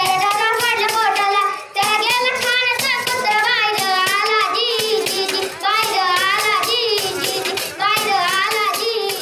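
A boy singing a Marathi povada ballad in long, wavering phrases with short breaths between them. He beats a small jingled frame drum (daf) in a steady rhythm as he sings.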